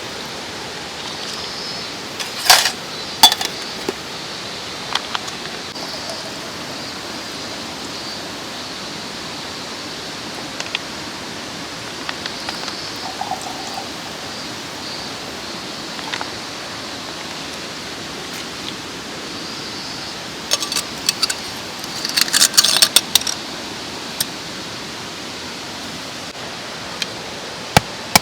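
Mountain stream flowing with a steady rush of water, with a few sharp clicks and knocks: two loud ones a few seconds in and a quick cluster near the end.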